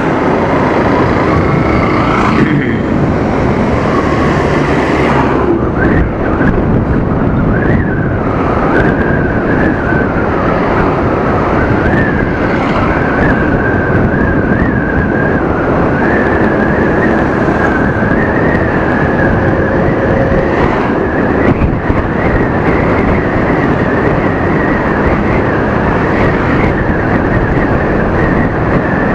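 Steady wind rush and engine noise from riding an Aprilia SXR 160 scooter at road speed. A thin, high whine wavers in pitch through most of it.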